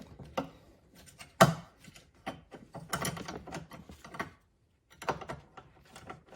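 Scattered clicks and knocks of a small bracket, screws and a hand tool being handled and fitted against a car door panel, with one sharper knock about a second and a half in and a quick run of clicks around the middle.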